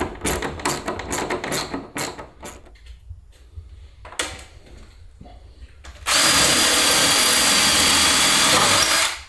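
Quick clicking as a hand screwdriver works a screw into a seat-frame bracket, then about six seconds in a power drill runs loudly and steadily for about three seconds before cutting off.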